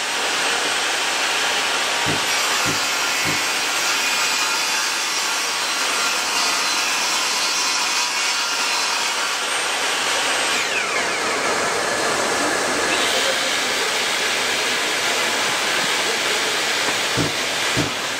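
Bosch GTS 10 XC table saw running and ripping a wooden board, a steady loud saw noise with a falling whine about ten seconds in. A few knocks from the board being handled, near the start and again near the end.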